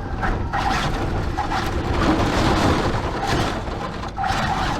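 Wind and road noise from a vehicle moving at highway speed: a steady rushing with uneven swells and gusts.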